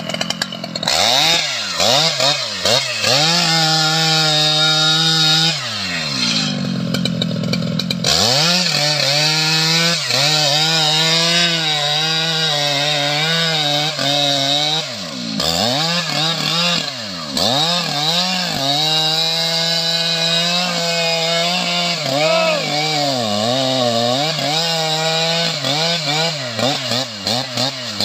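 Stihl MS 881 two-stroke chainsaw cutting into a red mahogany trunk at full throttle. Its engine pitch dips and recovers repeatedly, with a longer drop in revs partway through, as the chain loads in the wood and the throttle is eased and opened again.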